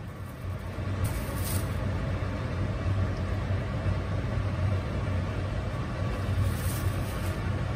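Steady low mechanical rumble, building over the first second and then holding level.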